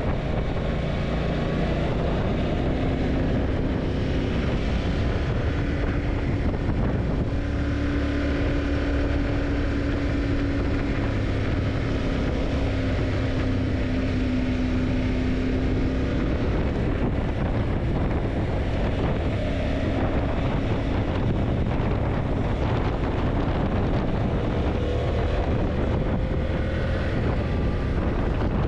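Yamaha TDM900's parallel-twin engine running while riding, its note holding mostly steady, with wind noise buffeting the microphone throughout.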